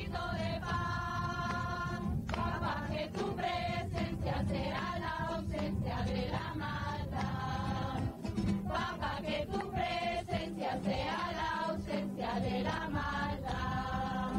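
A choir singing a slow song in long held notes, over a steady low hum.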